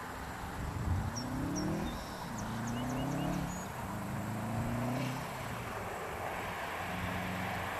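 A 2008 Subaru Legacy Spec B's turbocharged flat-four, breathing through a Perrin 3-inch divorced downpipe and FMS catback exhaust, accelerates hard in the distance. It makes three rising pulls, with the pitch dropping at each upshift, then settles into a steadier lower note near the end. A few birds chirp faintly early on.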